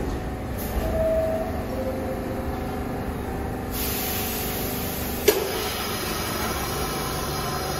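New York City subway train rolling to a stop at a station platform, its wheels and motors rumbling with faint brake squeal. About halfway through a steady air hiss starts, the air brakes venting as the train halts. A sharp single clack follows a second or so later.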